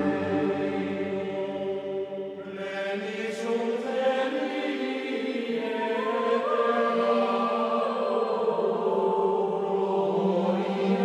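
Background music of voices chanting in long held notes over a sustained drone, the pitch shifting in slow steps.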